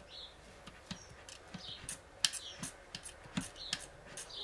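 A dozen or so irregular light metallic clicks and taps as the gears, shafts and selector fork inside an opened Peugeot BE4 manual gearbox are worked by hand. The sharpest click comes a little past two seconds in.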